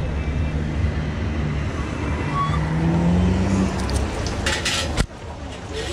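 Wind rumble and road noise on a moving bicycle's microphone, with a motor vehicle's engine rising in pitch for about a second and a half, starting about two seconds in. The sound cuts off abruptly with a click about five seconds in.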